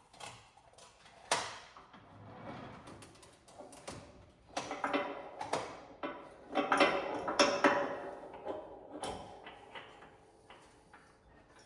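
Clinks, knocks and scrapes of hand tools and metal plow parts being handled during assembly, busiest from about four and a half to nine seconds in.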